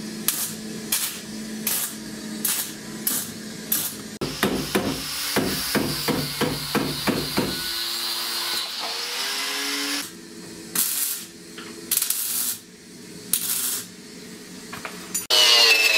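Semi-automatic MIG welder stitch-welding sheet steel: short crackling bursts, a few a second, with one longer continuous run in the middle, as a patch is welded over the rotted rear shock-absorber mount of a VAZ 2109. Music comes in just before the end.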